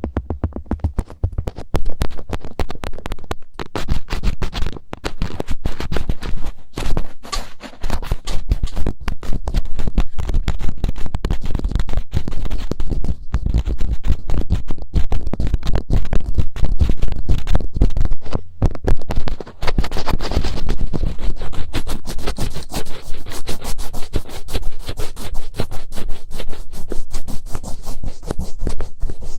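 Fingertips scratching and rubbing in the ear of a binaural microphone for ASMR 'finger ear cleaning': a fast, dense run of close scratches with a deep rumble beneath.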